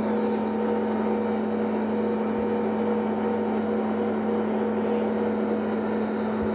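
Friction stir welding machine running: the spindle and rotating tool give a steady hum with a constant high whine as the tool travels through an aluminium plate.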